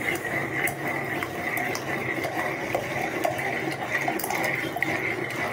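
A metal spoon stirring and scraping against a heavy-bottomed metal pot, with small clinks and liquid sloshing, as rice-flour batter is poured little by little into boiling sugar water for rice halwa. A steady high hum runs underneath.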